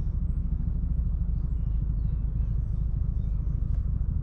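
Steady low rumble of a fishing boat underway, fluttering rapidly at an even level.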